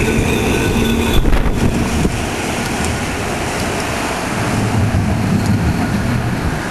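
Electric tram passing close on its street track, with a steady whine and a few clicks about a second in, then a rumble as it runs away. Wind buffets the microphone.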